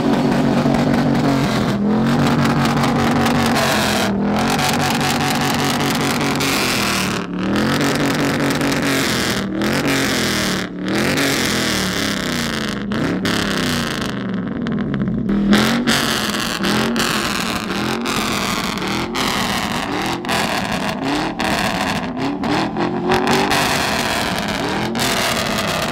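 Pickup truck V8 engines revving through their exhausts, the pitch climbing and falling over and over, with sudden breaks between clips.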